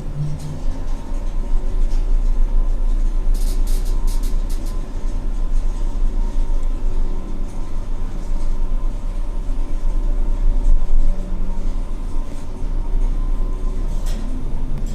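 Toshiba elevator car in motion: a steady low rumble and hum of the ride, with a quick run of light clicks a few seconds in.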